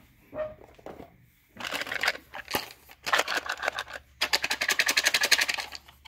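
Cards or paper being handled: rustling, then a rapid riffling flutter for the last couple of seconds, like cards being shuffled or pages flicked through.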